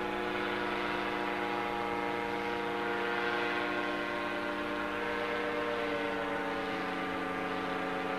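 Paramotor engine and propeller running steadily overhead, a droning even note whose pitch sags slightly near the end as the powered paraglider flies away.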